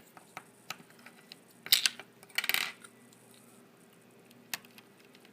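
Light plastic clicks and a short clatter of small hard pieces as a keycap is pulled off and swapped on a mechanical keyboard, with a cluster of louder clicks about two seconds in, followed by a brief rattle.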